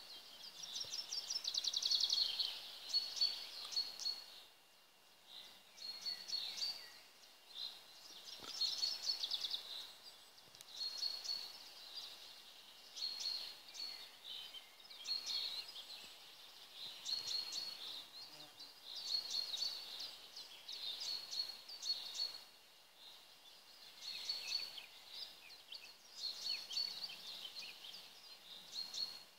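Songbirds singing: short high-pitched phrases and trills repeating every second or two.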